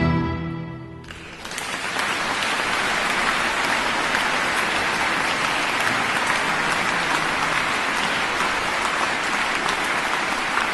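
The last chord of a mixed ensemble of strings and winds dies away, and about a second in the audience starts applauding, a steady clapping that holds to the end.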